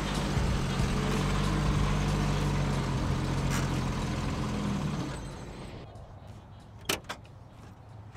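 Jeep engine running as it rolls in and stops, then switched off about five seconds in. Shortly after come two sharp clicks of the door latch as the door is opened.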